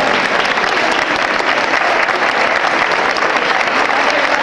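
A large audience clapping steadily, echoing in a sports hall.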